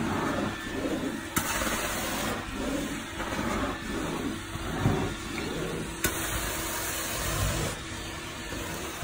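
Hot-water carpet extraction machine running, its vacuum drawing steadily through the floor wand as the wand is stroked back and forth over the carpet, the sound swelling and fading with each stroke. A sharper hiss cuts in twice, about a second and a half in and again near six seconds, as the cleaning solution is sprayed through the wand.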